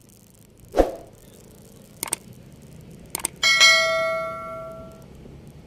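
YouTube subscribe-button animation sound effect: a thump about a second in, two mouse clicks, then a notification-bell ding that rings out and fades over about a second and a half.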